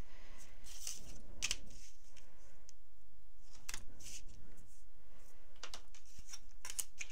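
Crafting with double-sided adhesive tape and cardstock: scattered rustles as a tape strip is handled and pressed onto the card, with light taps and clicks as a plastic set square and the tape roll are set down.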